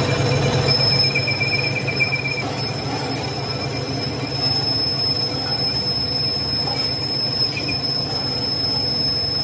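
Metal lathe running and turning a metal bar, with a steady high-pitched squeal from the cutting tool that starts about a second in.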